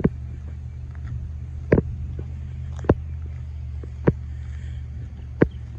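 Chevrolet Silverado 2500 HD's 6.6-litre Duramax V8 turbo-diesel idling with a steady low hum, while five sharp footsteps on asphalt land about one a second.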